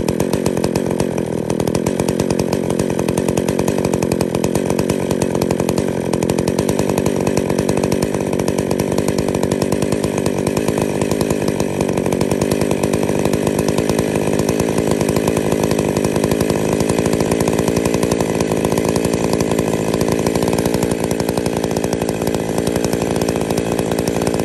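Old Stihl two-stroke chainsaw engine running steadily at idle, its speed rising slowly from about 2,500 to 3,350 rpm as the idle speed screw is turned in. This is a test of where the centrifugal clutch engages after its worn clutch springs were replaced; it should not engage below about 3,500 rpm.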